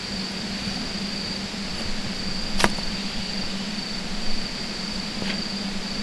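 Insects trilling steadily on one high note over a low steady hum, with one sharp snap about two and a half seconds in and a couple of fainter ticks later.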